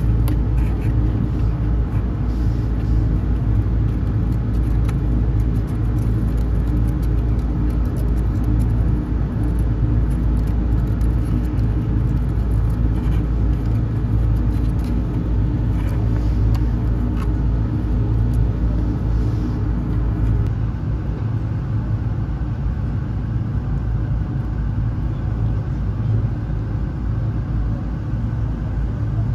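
Steady low mechanical rumble with a constant hum, like a running engine nearby; its low end shifts a little about two-thirds of the way through.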